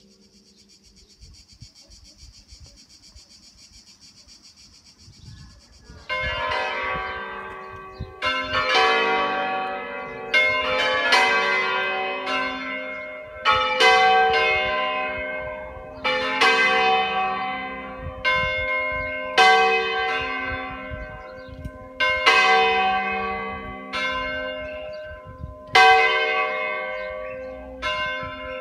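Five-bell church peal in G, cast by Carlo Ottolina of Seregno in 1947, rung with the bells swung up in their frame. After about six seconds of a faint, steady high buzz, the bells start striking one after another, roughly a stroke every second or two with some close pairs, each ringing on and dying away under the next.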